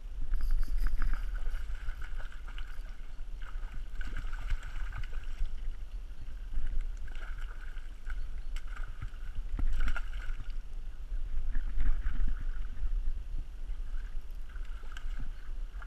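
Spinning reel whirring in repeated short stretches as a hooked fish is reeled in, over a steady low wind rumble on the microphone.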